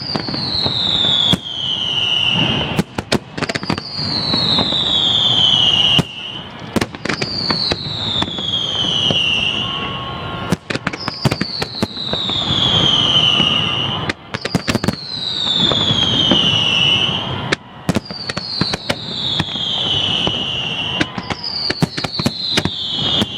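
Fireworks display: many sharp bangs and crackles, over a high whistle that glides down in pitch for about two seconds and repeats roughly every three and a half seconds.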